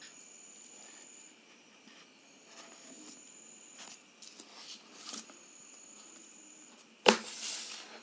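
Thin plastic water bottle being handled, with soft clicks and one sharp knock about seven seconds in followed by a short crinkle of plastic. A thin steady high tone comes and goes behind it.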